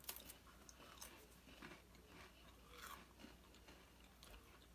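Faint crunching and chewing of crisp cheese crackers being eaten, in scattered small clicks and crackles.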